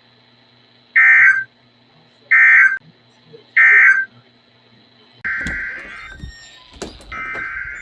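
NOAA Weather Radio SAME end-of-message data bursts: three short warbling digital bursts, evenly spaced about 1.3 s apart, marking the end of the severe thunderstorm warning broadcast. About five seconds in, crackling radio static sets in, and longer bursts of the same warbling data sound begin.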